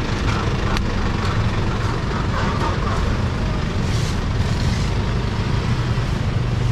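Steady low rumble of street traffic, with motor vehicles, a truck among them, running close by.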